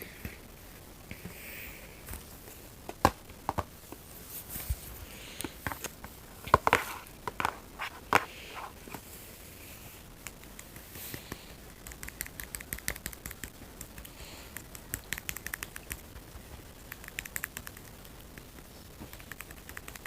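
Snack packaging being handled: wrapper crinkling, with scattered sharp clicks and taps. The loudest clicks come about three seconds in and again a few seconds later, and runs of quick fine crackling follow near the end.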